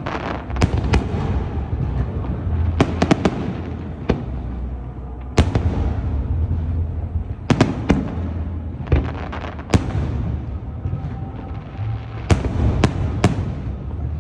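Fireworks display: aerial shells bursting, about a dozen sharp bangs, some in quick clusters, each trailing off into echo over a continuous low rumble.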